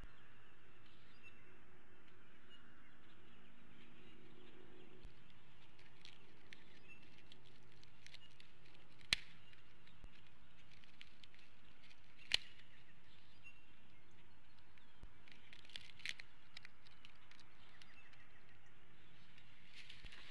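Nest-cam ambience at a bald eagle nest: a steady background hiss with faint short songbird chirps, two sharp clicks about three seconds apart near the middle, and a scatter of smaller clicks later. Near the end a rustle of wings and sticks as a second bald eagle flies in to the nest.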